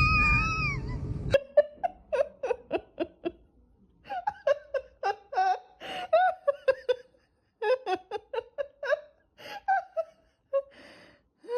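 A person laughing in many short, broken bursts with pauses between them. The laughter follows a loud, wavering, high-pitched whine that cuts off abruptly about a second in.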